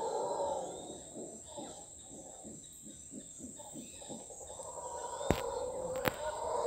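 Mantled howler monkey howling: the deep howl fades in the first second, gives way to a run of short grunts, about three a second, and swells again near the end. A steady high insect whine runs underneath, and two sharp clicks come near the end.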